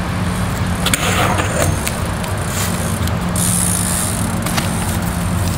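A steady low hum like a motor vehicle's engine running, with scattered clicks and a short hiss about three seconds in.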